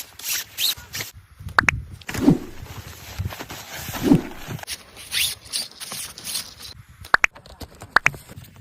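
Scraping and rustling handling noise with scattered sharp clicks and knocks and a few dull thuds, as the tent and its packaging are unpacked.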